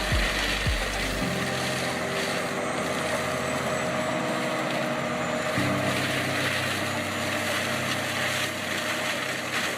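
A heavy machine's engine running steadily, mixed with background music.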